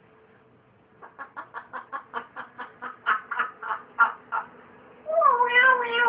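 Parrot laughing in a quick run of short, even "ha-ha" pulses, about five a second for three seconds or so. Then, about five seconds in, a louder drawn-out call whose pitch slides up and wavers.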